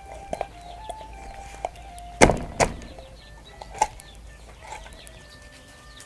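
Sharp chopping knocks, as of a knife or cleaver on a board, two close together a little past two seconds in and another near four seconds, over soft background music.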